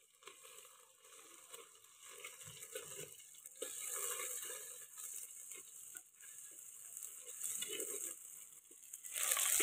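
Onion, green chilli, garlic and cumin sizzling in hot oil in a clay pot, with scattered small scrapes and taps of a metal spatula stirring. The sizzle grows louder about three and a half seconds in and again near the end.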